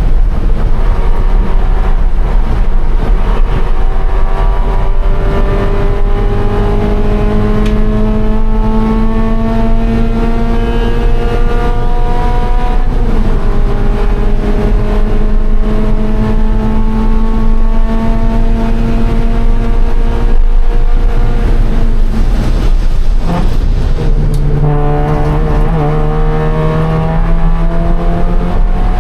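Scion FR-S's flat-four engine under hard acceleration on track, its pitch climbing slowly through a long pull over a heavy low rumble. Near the end the revs drop sharply with a quick blip, as for braking and a downshift, then climb again as it pulls out.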